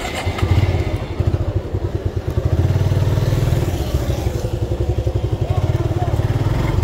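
Motorcycle engine pulling away from a standstill and running on under throttle, a close, fast-pulsing low exhaust rumble that grows louder about half a second in.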